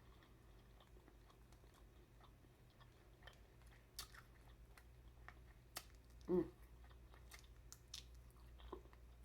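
A person chewing crab meat with the mouth close to the microphone: faint wet chewing with scattered sharp mouth clicks and smacks. There is one short hummed vocal sound a little past the middle.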